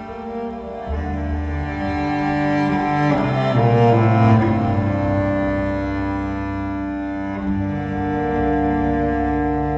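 Bowed cello playing slow, sustained notes, several sounding together over a steady low drone. The sound swells to its loudest about three to four and a half seconds in, then settles.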